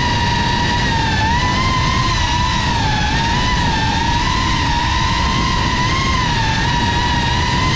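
GEPRC Cinelog 35 FPV cinewhoop drone in flight: its motors and propellers give a steady whine whose pitch wavers slightly up and down with throttle, over a low rushing noise.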